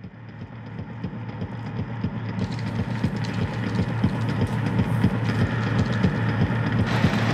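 A steady low rumble with a deep hum fades in from silence and grows louder, with a hiss joining about two seconds in and thickening near the end.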